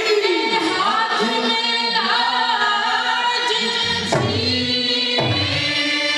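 Swang folk-theatre singing: voices hold long, wavering sung notes over a harmonium drone. About two-thirds of the way through, a drum comes in, striking about once a second.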